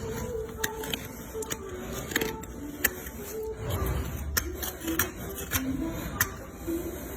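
Irregular sharp clicks and scraping from farrier tools working on a horse's hoof, with a dull knock about four seconds in.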